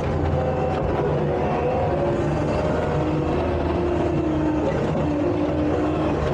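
Takeuchi tracked skid steer's diesel engine running steadily under load, with hydraulic whines that drift slowly up and down in pitch as the machine works dirt.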